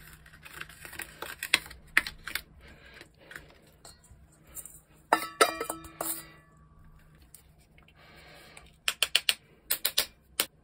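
Metal spoon scraping and clicking against a plastic tray as bath bomb mixture is gathered, then a stainless steel mixing bowl knocked several times about five seconds in, ringing briefly as powder is tapped out of it. Near the end comes a quick run of sharp metallic clicks from a metal sphere bath bomb mould being handled.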